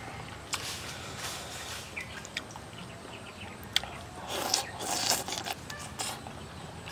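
A person eating steamed mackerel with chopsticks and a fork: a few sharp clicks of the utensils, then louder open-mouthed chewing of a big mouthful about four seconds in.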